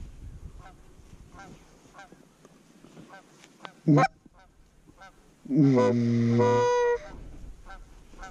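Goose call blown by a hunter close to the microphone: a short sharp cluck about four seconds in, then a long low moan about a second and a half later that breaks up into a higher honk. Faint honking of geese in the distance runs underneath.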